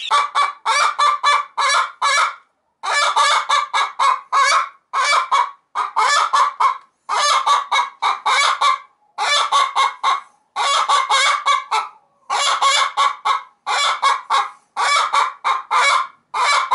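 Barred hen in a nest box calling loudly over and over: rapid runs of squawking notes broken by short pauses every second or two. This is the loud nest-box call hens give around laying an egg.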